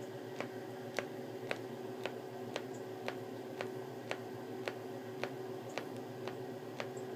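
A joint cracking over and over, thirteen sharp pops at about two a second, slightly uneven in spacing.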